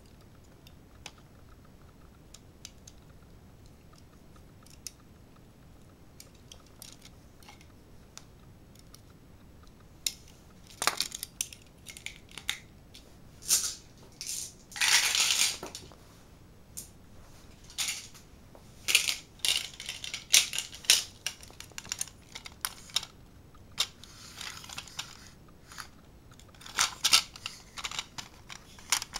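Irregular small hard clicks and clatters of plastic toy parts and marbles being handled, with a few longer scraping rattles about halfway and later on. The first third holds only a few faint clicks.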